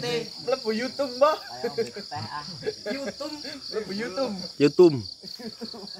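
Insects chirping in a steady, rapid high-pitched pulse, under several men's voices talking, with one loud shout near the end.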